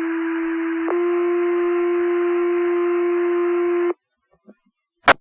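Two-tone sequential fire pager tones over a dispatch radio channel: a steady lower tone for about a second, then a slightly higher tone held for about three seconds, with radio hiss behind them. Near the end comes a single sharp click.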